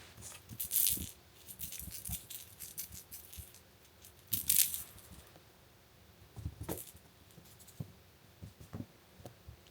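Small objects rattling and clicking as they are handled, in short scattered bouts, with two louder hissy rattles about a second in and again around four and a half seconds in.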